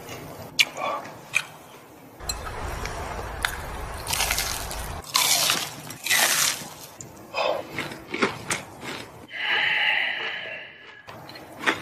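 Crispy fried chicken being bitten and chewed close to the microphone: scattered crunches and crackles in several clusters, with a held hum-like mouth sound about ten seconds in.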